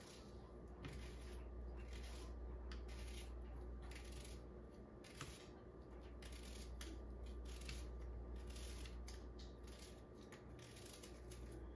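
A kitchen knife cutting vegetables on a cutting board: a faint, even series of crisp cuts, about two a second, over a steady low hum.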